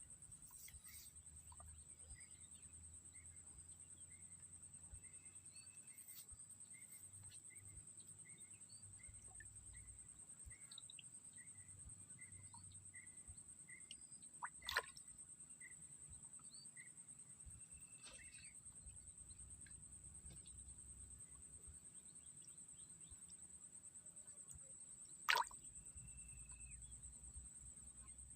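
Near silence: faint swamp ambience. There is a steady high-pitched whine, and a run of short chirps, about two a second, that fades out past the middle. Two sharp clicks or plops come about halfway and near the end.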